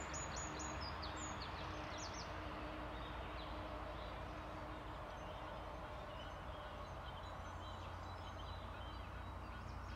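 Wild birds calling at dawn: several short, high, falling chirps in the first couple of seconds, then fainter scattered calls. Faint steady low background noise runs underneath.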